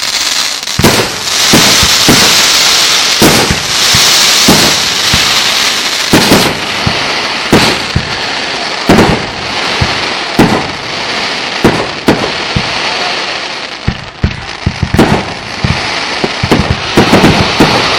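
Fireworks going off: a steady crackling hiss of burning stars with many sharp bangs scattered throughout, coming thick and fast near the end.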